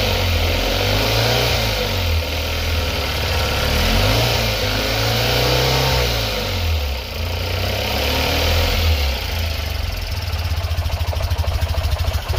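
Tata Nano CNG's two-cylinder engine revved up and down several times, running rough and misfiring. The mechanic traces the misfire to a faulty O2 sensor.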